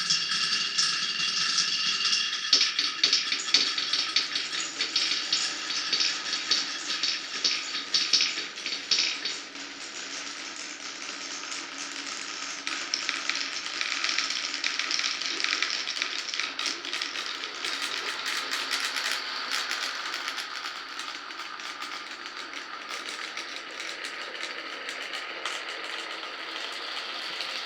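Glass marbles rolling and clattering along a marble run, a dense rapid patter of clicks for about the first nine seconds, then a quieter, steadier rolling rattle.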